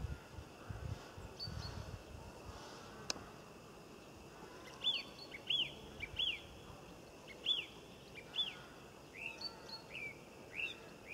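A small bird calling: a run of about nine short, clear chirps, each rising then falling in pitch, starting about five seconds in and repeating every half second to a second. A low rumble comes before them in the first couple of seconds.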